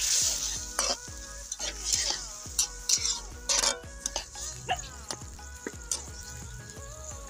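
A metal spatula scraping and stirring through food in a large aluminium wok, a string of short scrapes that thin out after about four seconds, over a steady sizzle from the hot pan.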